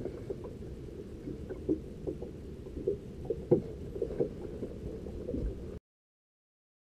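Muffled low rumble of wind and water lapping around a small fishing boat, with scattered light knocks against the hull. It cuts off abruptly to silence near the end.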